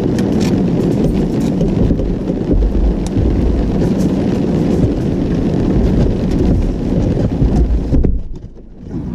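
Steady low rumble of a car driving on a wet road in rain, heard inside the cabin, with scattered sharp ticks of raindrops on the windshield. The sound drops away briefly near the end.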